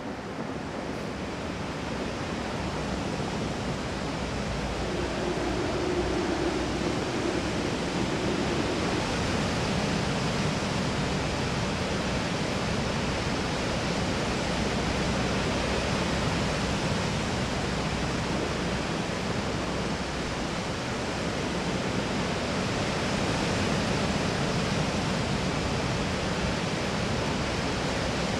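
Steady roar of a rough, stormy sea with breaking waves, a dense rushing noise that grows louder over the first few seconds and then holds steady.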